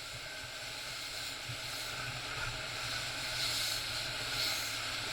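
Motorboat engine running steadily under way, with wind and rushing water hiss over it, growing slightly louder.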